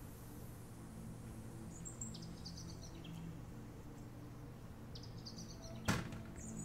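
Short high chirps, each a quick run of falling notes, come every few seconds over a steady low hum. One sharp knock sounds near the end.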